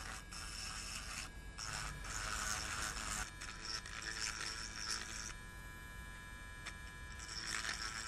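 Small handheld electric rotary tool with a 0.8 mm drill bit running and scraping as it bores a hole into the plastic base of a disposable turbo lighter. The grinding comes in uneven spells and eases after about five seconds.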